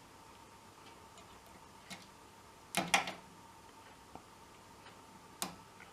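Lock pick and tension wrench working in an old Union brass cabinet lock: a few sparse, sharp metallic clicks and taps, the loudest two close together about three seconds in.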